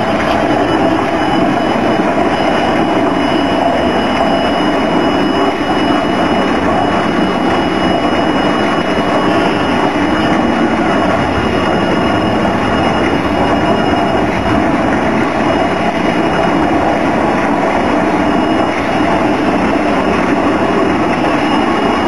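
JZC350 drum concrete mixer running: a steady, loud mechanical noise with a thin high whine held over it.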